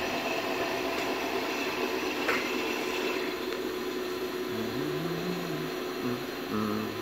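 Haas 40 HP vector drive running on test in a CNC control cabinet: a steady whirring of its cooling fan and electrical hum, with several constant tones held throughout.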